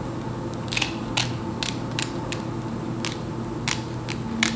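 Scissors snipping through the lace of a lace frontal wig: about ten short, sharp snips at an uneven pace, over a faint steady hum.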